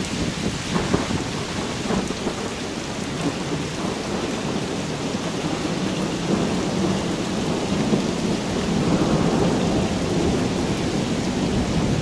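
Steady heavy rain during a thunderstorm, with thunder rumbling underneath; the rumble swells a little about two-thirds of the way through.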